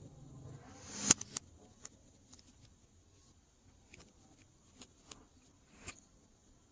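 Glossy slime being handled: sticky clicks and small pops. About a second in, a short hiss swells into one sharp, loud pop, followed by scattered softer clicks.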